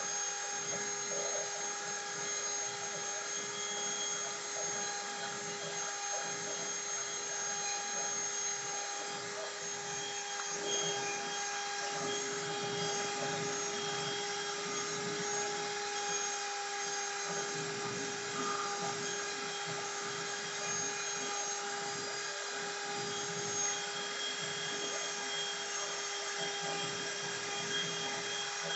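CNC router spindle running with a steady whine while it cuts wood, with a rough hiss of cutting underneath.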